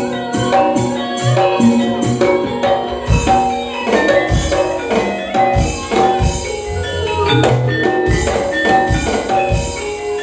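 Instrumental campursari music: a Javanese ensemble of drums and tuned pitched instruments playing a steady, beat-driven melody, with no singing.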